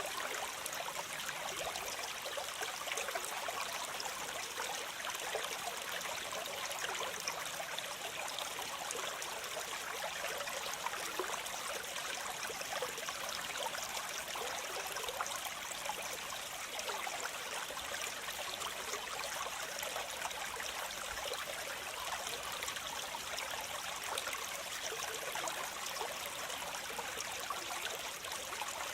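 Waterfall: water cascading and splashing in a steady, unbroken rush, mostly a bright hiss with little deep rumble.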